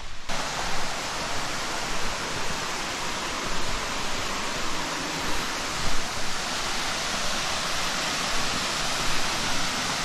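Small waterfall rushing steadily into a creek pool.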